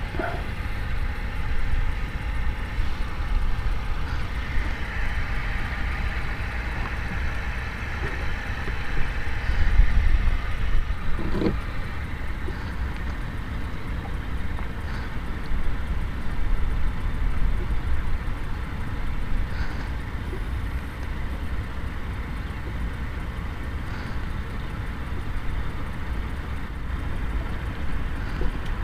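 Wind buffeting the microphone in open air: a steady, uneven low rumble, with a single light knock about eleven seconds in.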